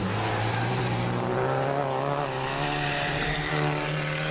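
Rally car engine held at steady revs, its note wavering only slightly, with no gear change, over a hiss of gravel and road noise.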